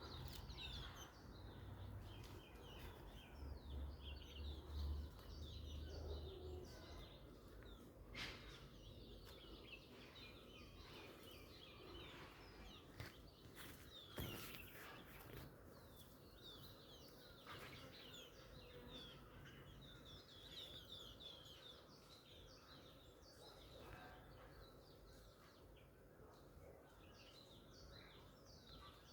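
Faint chirping and twittering of small birds, short chirps scattered throughout, with a couple of sharp clicks.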